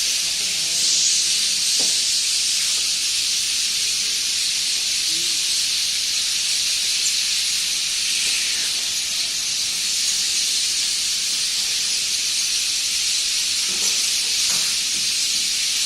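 A large number of birds chirping at a roost as they settle at their nests. Their calls merge into one dense, steady, high chorus.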